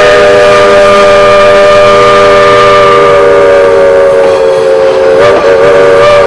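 Shay steam locomotive's chime whistle blowing one long blast, several notes sounding together as a chord, its pitch sagging slightly, with a brief flutter about five seconds in before it stops near the end.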